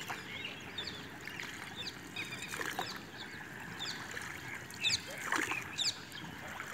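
Water splashing and lapping around a wooden outrigger canoe as it moves across a lake. Birds call in short chirps throughout, loudest in a cluster about five seconds in.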